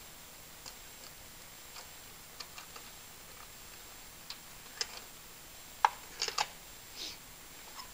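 Faint, irregular clicks of a ratchet and long socket extension working the spark plugs out of the deep plug wells, with a few louder metallic clinks about six to seven seconds in.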